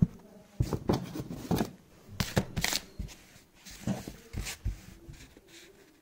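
Handling noise close to the microphone: irregular rustles, taps and knocks of things being moved about, dying away near the end.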